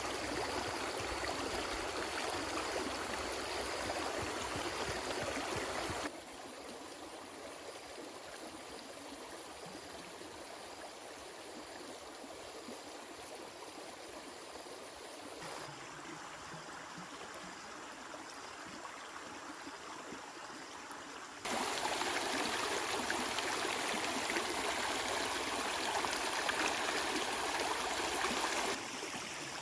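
Stream water running steadily over rocks, a continuous rushing with no distinct splashes. It steps abruptly quieter about six seconds in and louder again about two-thirds of the way through.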